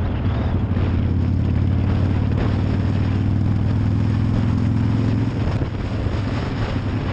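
Harley-Davidson V-twin motorcycle engine running steadily while riding, with wind noise on the helmet-mounted camera. The engine note weakens a little about five seconds in.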